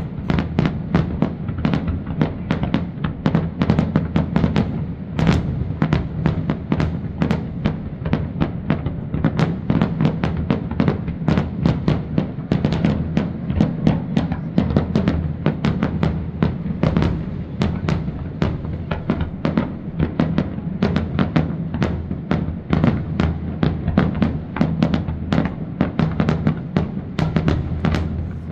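Fireworks display: a dense, continuous barrage of shell bursts and crackle, several bangs a second, with no let-up.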